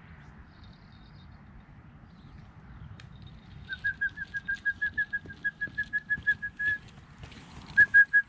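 A rapid run of short, high whistled notes, about six a second, lasting some three seconds, then a second run starting again near the end.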